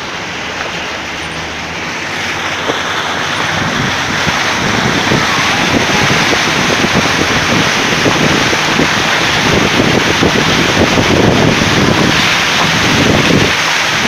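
A car driving through a flooded street, its tyres throwing up a continuous rushing splash of water that gets louder and rougher a few seconds in as the car pushes through deeper water.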